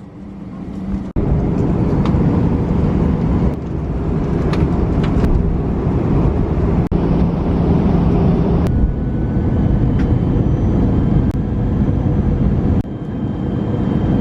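Steady, loud cabin rumble of a jet airliner in flight, with faint humming tones, changing abruptly several times across a string of short clips.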